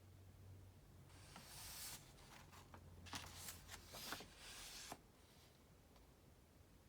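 Paper rustling for about four seconds, with several sharp crackles and clicks, as of a printed book's pages being handled and turned; it stops abruptly, leaving a faint low hum.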